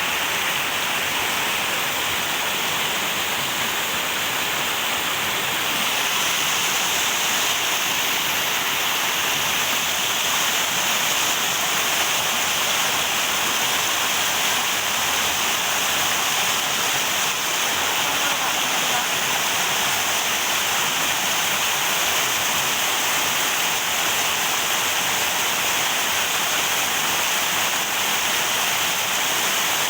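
Steady rush of flowing river water, a little brighter from about six seconds in.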